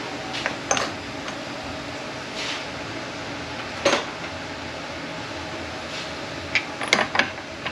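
A few sharp metallic clinks and knocks, about a second in, about four seconds in, and a quick cluster near the end, over a steady background hum like a shop fan.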